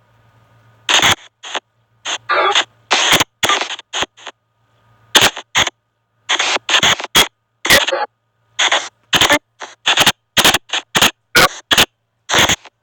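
Spirit box app on a phone playing rapid, irregular bursts of static and chopped audio fragments. Each burst lasts a fraction of a second, with short silent gaps between them.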